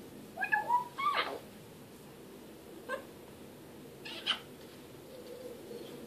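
African grey parrot calling: two quick calls that glide up and down in pitch about half a second and a second in, a short click near three seconds, and another brief call just after four seconds.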